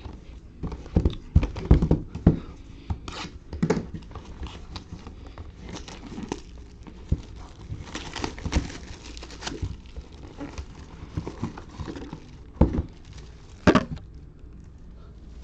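Sealed trading card boxes being opened by hand: wrapping crinkled and torn, with scattered clicks of handling and two louder knocks near the end.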